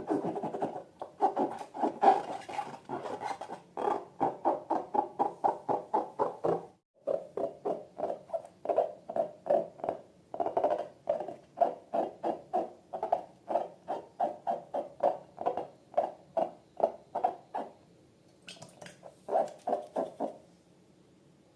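Rubber balloons and slime being squeezed and worked by hand: rapid rhythmic squeaky squelches, several a second. They break off briefly about seven seconds in and stop shortly before the end.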